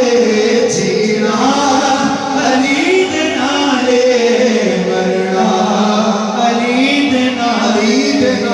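Men singing a manqabat, a devotional praise song, through microphones and a sound system, with long held notes that slide up and down in pitch.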